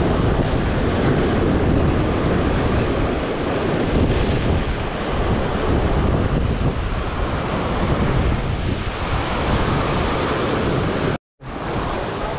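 Sea surf breaking and surging against shore rocks, with wind buffeting the microphone. The sound cuts out completely for a moment near the end.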